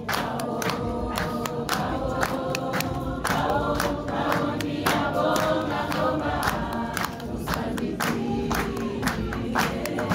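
A small group of men and women singing a gospel song together, with rhythmic hand-clapping in time, about two claps a second.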